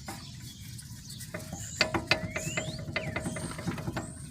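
Irregular metallic clicks and knocks from a worn front upper ball joint on a 2005 Chevy Trailblazer being rocked to show its play. The looseness is the sign of a badly worn joint, 'pretty ate up', that needs replacing.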